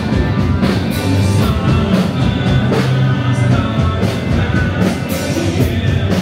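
Rock music played loud, with a singer, guitar and drum kit.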